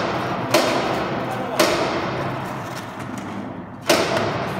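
Hammer blows on steel: three sharp metallic clangs, the first two about a second apart and the third some two seconds later, each leaving a short ring that echoes in a large workshop hall.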